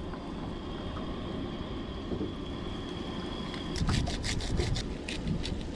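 Catfish nuggets frying in a small pot of oil on a camp stove: a faint steady sizzle over low wind rumble, with a quick run of sharp crackles and clicks about four seconds in.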